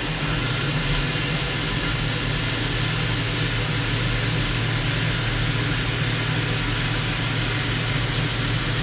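CNC mill's half-inch Kennametal HARVI III end mill cutting Monel 400 under flood coolant: a steady, even cut with a thin high whine over it. It is a full-depth roughing pass with a light radial step-over.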